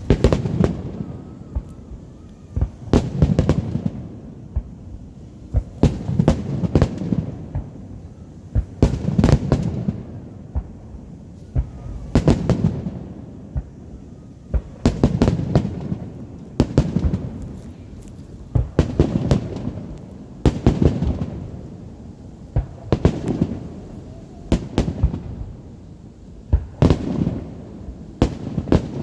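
Fireworks display: aerial shells bursting in volleys about every two to three seconds, each cluster of sharp bangs followed by a low rolling echo.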